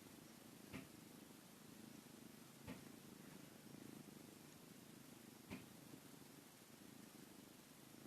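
Domestic cat purring faintly and steadily, with three short clicks about one, three and five and a half seconds in.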